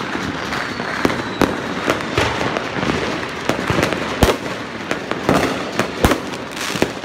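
Many fireworks going off at once: a continuous crackle with repeated sharp bangs of aerial shells bursting, the loudest about four and six seconds in.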